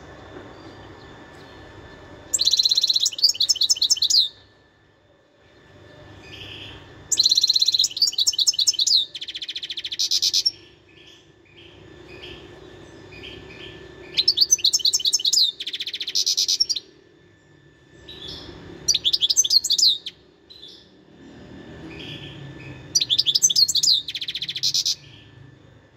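Wild European goldfinch singing in five bursts of rapid, high, twittering notes, each a second or three long, with short pauses between them.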